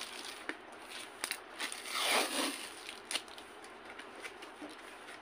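Cardboard parcel being opened with scissors and by hand: crinkling and tearing of packing tape and cardboard, loudest about two seconds in, with a few small clicks.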